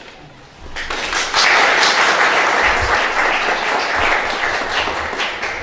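An audience applauding, starting about a second in and fading out near the end.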